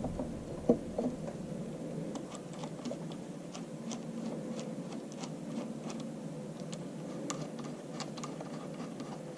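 Light, irregular clicks and taps of small metal tractor parts being handled and fitted by hand, over a faint steady hum.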